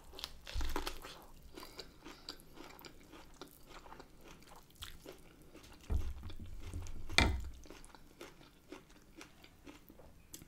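A person chewing and biting food from a shrimp boil close to the microphone: many small wet mouth clicks, with one sharper crunch about seven seconds in and a few dull low thumps.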